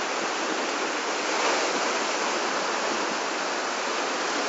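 Ocean surf breaking and washing over shoreline rocks: a steady rush of white-water noise with no let-up.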